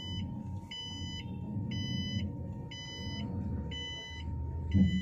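Mahindra e-Verito electric car's reverse-gear warning beeper sounding in the cabin, about one beep a second, five times, showing that the car is in reverse and moving. Under it is a low steady rumble, with a brief thump near the end.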